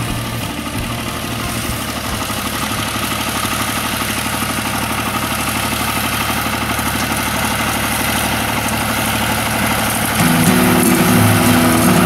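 Small red tractor's diesel engine running steadily under load as it pulls a rotary hay rake through cut hay, slowly growing louder as it approaches. Background music comes in near the end.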